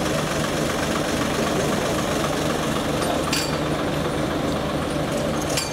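Kato truck crane's diesel engine running steadily at a low, even rumble as it holds the load, with a short sharp click about three seconds in.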